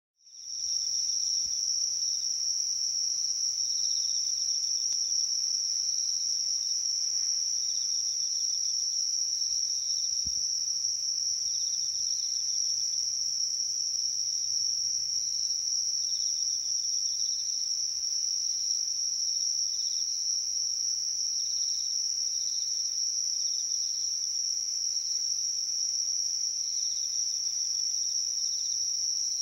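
Insects singing: one high, unbroken trill that holds steady throughout, with softer short chirps from another insect repeating irregularly just below it.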